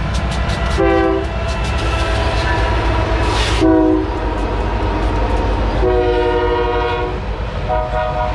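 BNSF diesel freight locomotives' air horn blowing four blasts (short, short, one long blast of about a second, short) as the lead locomotives pass, sounding for a road crossing, over the steady low rumble of the diesel engines and rolling train.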